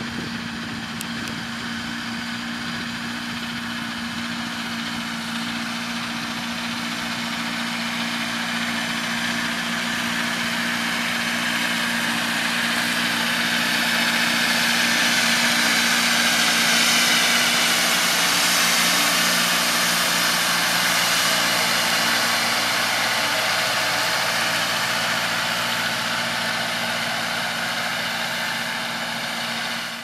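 John Deere 6130R tractor's diesel engine running steadily while it pulls a four-furrow reversible plough through stubble. It grows louder as the tractor comes closest about halfway through, then eases off slightly.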